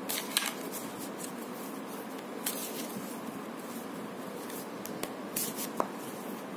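Steady faint hiss with a few short rustles and light taps: tarot cards being handled on a table.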